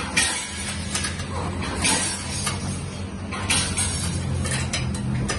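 Stainless-steel coconut peeling machine running: a steady motor hum with repeated scraping bursts as the blade works the coconut, about one every one and a half seconds.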